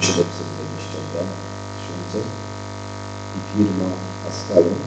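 Steady electrical mains hum in the sound system, with a few brief low voice-like sounds and a sharp click near the start.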